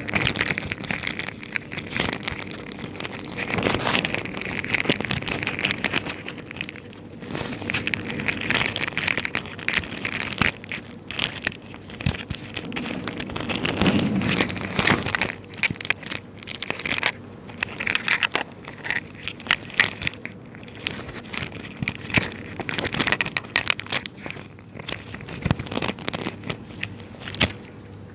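Irregular crackling and rustling handling noise on a microphone, with indistinct voices murmuring at times.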